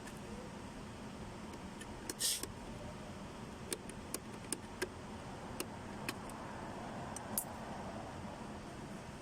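Small metal parts being handled: a short jingling rattle about two seconds in, then a string of sharp, separate clicks and taps, over a faint steady hum.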